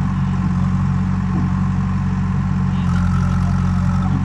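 JCB 3DX backhoe loader's diesel engine running steadily under the working backhoe. About three seconds in the engine note firms up and a higher whine joins it as the boom lifts a bucket of mud.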